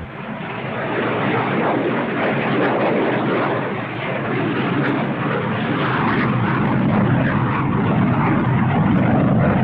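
Antonov An-22's four turboprop engines with contra-rotating propellers running, a dense steady drone that builds over the first second and then holds.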